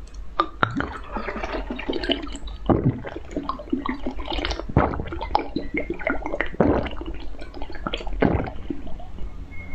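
Close-up slurping of a green drink sipped from a bird-shaped glass cup, with four louder slurps about every two seconds and smaller sips between.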